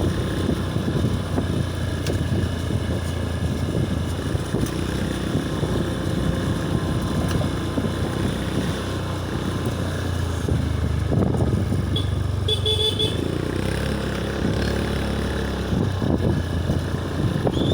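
Motorcycle engines running steadily in road traffic, with a short horn beep about two-thirds of the way through.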